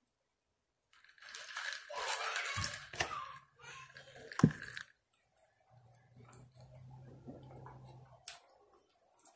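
Close-miked wet chewing and mouth smacking on rotisserie chicken, loudest in the first half, with one sharp click about four and a half seconds in, then softer chewing.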